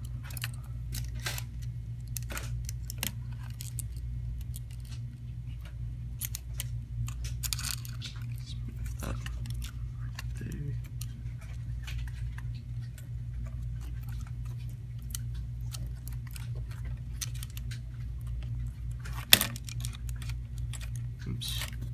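Light clicks and taps of small phone parts and flex cables being handled and fitted by hand, over a steady low hum. One sharper click stands out near the end.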